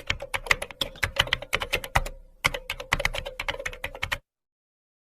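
Computer keyboard typing: rapid, uneven key clicks for about four seconds, with a brief pause around the middle, then cutting off abruptly.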